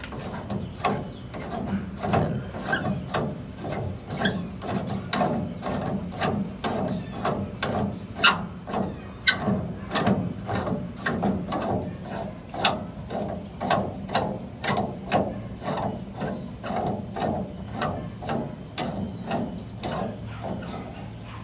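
Ratchet wrench clicking steadily, about two clicks a second, with metal rubbing between clicks, as a nut on the tie rod end of the steering linkage is worked.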